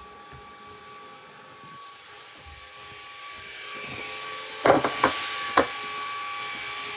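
Small flying ball toy's propeller motor whirring with a steady hum, getting louder from about halfway through, with a few sharp knocks in the second half.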